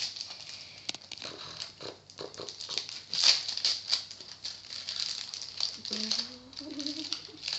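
Foil card-pack wrapper being torn open and crinkled by hand, a busy run of crackles and rustles, loudest about three seconds in.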